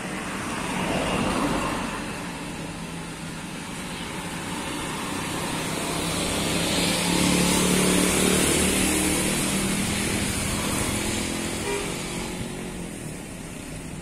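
Road traffic going by: a car passes about a second in. From about six to eleven seconds a heavier engine runs louder, which fits a large coach's diesel pulling out, before fading again.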